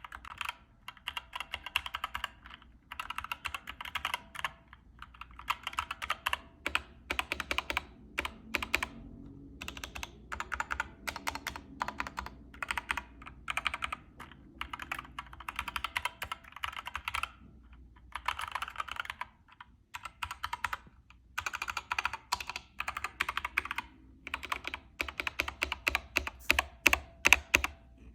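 Typing on a mechanical keyboard fitted with Gateron Optical Brown tactile switches. Runs of rapid keystrokes are broken by short pauses, and near the end there are more spaced-out single presses.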